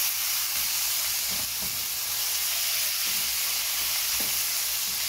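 Pork cubes with onion and garlic sizzling steadily in oil in a nonstick frying pan as they are stirred with a silicone spatula.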